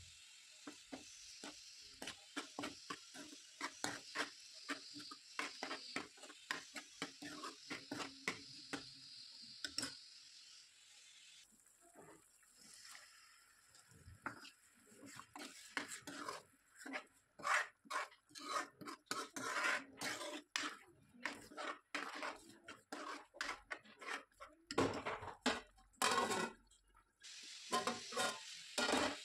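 A spoon knocking and scraping against a cooking pan as food is stirred. Frying sizzle runs under it for roughly the first third. The knocks get louder and sparser later on.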